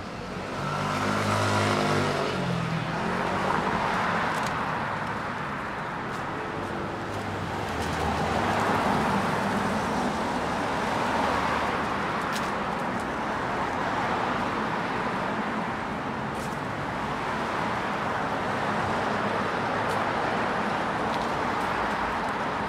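City street traffic: cars passing by with a steady rush of tyre and engine noise that swells and fades. A vehicle's engine passes close and picks up speed about a second or two in.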